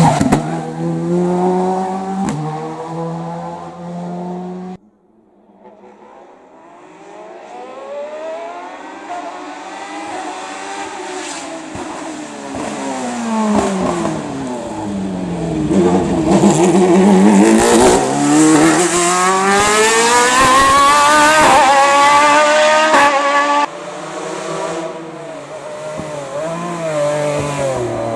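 Race car engines at full throttle. An engine note holds steady, then cuts off suddenly about five seconds in. Another car's engine then builds, the revs rising and falling as it shifts up through the gears, and it is loudest a little past the middle. It drops away abruptly near the end to a quieter, steadier engine note.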